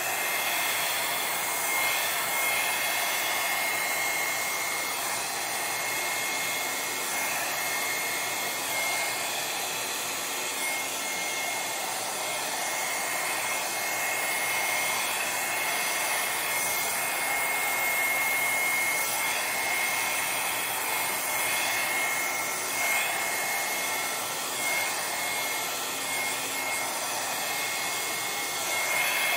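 Handheld hair dryer blowing steadily, with a steady high whine from its fan motor over the rush of air, as it pushes wet acrylic paint across a panel in a Dutch pour.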